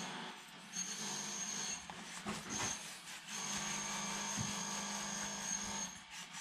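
Fingers rubbing and working at a small metal venturi from an Ideal Logic gas boiler close to the microphone, cleaning out the hair and grease clogging it, with a few sharp clicks. A steady high whine comes and goes throughout.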